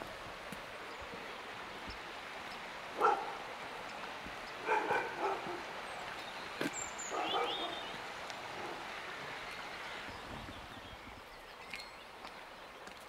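A dog barking: one bark about three seconds in, a quick run of barks near five seconds, and another bark or two around seven seconds.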